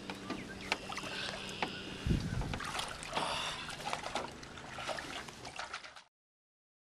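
Water splashing and trickling around a small boat, with scattered knocks and clicks and a low steady hum that stops about two seconds in, followed by a thump. The sound cuts off abruptly to silence about six seconds in.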